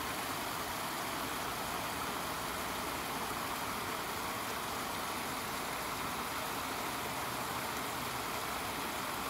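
Spring water gushing out from under a rock ledge and splashing into a shallow creek pool: a steady rushing and splashing.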